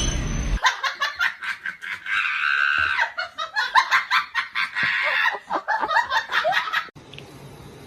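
A person laughing hard in quick repeated bursts, cut off abruptly about a second before the end.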